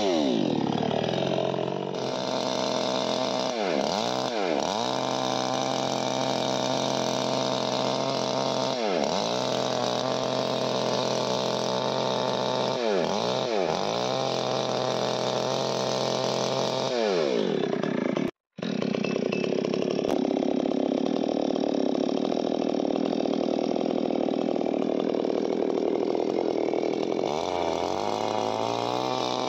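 Petrol chainsaw running under load in a cut, its engine speed falling at the start and then dipping briefly several times as the chain bogs in the wood before picking back up. It cuts out for an instant about 18 seconds in, then runs on and revs up near the end.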